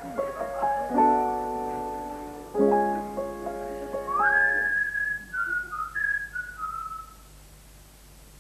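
Keyboard chords struck twice, about a second in and again near three seconds, ringing on. Then a whistle slides up and steps back down in a few short notes, fading out about seven seconds in.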